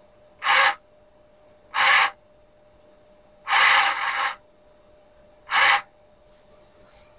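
The servo motor of a Dactron Auto STAC ST1000W servo-controlled AC voltage regulator runs in four short bursts, the third the longest. Each burst is the regulator readjusting to hold its output near 220 V as its input voltage is stepped down.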